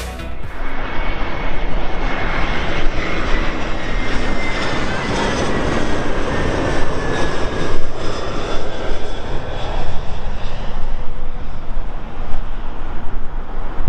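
Airbus A321-200 airliner's jet engines on final approach with its landing gear down: a loud, steady rushing noise with a faint high whine that slowly slides down in pitch.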